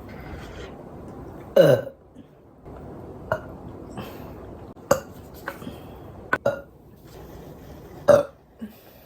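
A person burping repeatedly with a bloated, overfull stomach. One long, loud burp falls in pitch about a second and a half in, a run of short burps follows, and another loud burp comes near the end.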